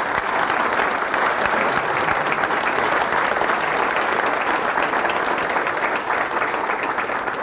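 Audience applauding: a roomful of people clapping at a steady level.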